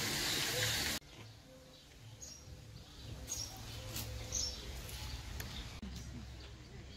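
Outdoor garden ambience: a loud, even hiss that stops abruptly about a second in, then a quieter background with a few short, high bird chirps over a low rumble.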